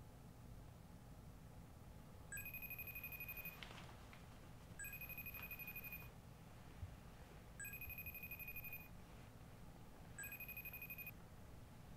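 A phone ringing four times, each ring a quiet, high warbling tone of a little over a second, repeating about every two and a half seconds.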